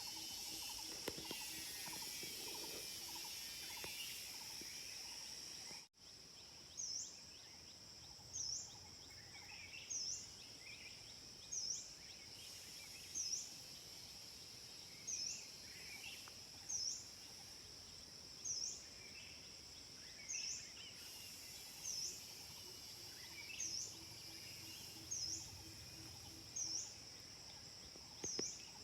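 Forest insect chorus: cicadas keep up a steady high-pitched drone. A short sweeping call repeats about every second and a half, with scattered bird chirps. There is a brief dropout about six seconds in.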